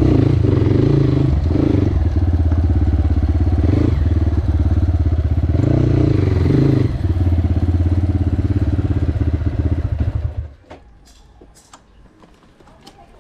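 Crossfire HJ250 motorcycle engine running with the dB killer taken out of its exhaust, its pitch swelling and easing a few times. It stops suddenly about ten seconds in, leaving a few faint clicks.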